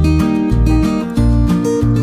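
Background music: a strummed acoustic guitar over a steady bass beat of about two pulses a second.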